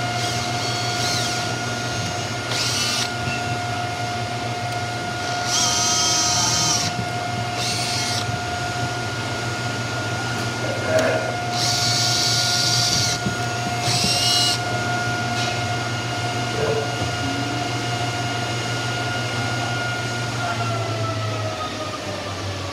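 Cordless drill running in about six short bursts into the pine baseboard, two of them over a second long, as the drawer's baseboard is fastened on. Under it a machine hums steadily and winds down near the end.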